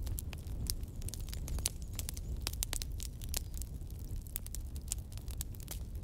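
Wood bonfire crackling: irregular sharp pops and snaps, several a second, over a steady low rumble.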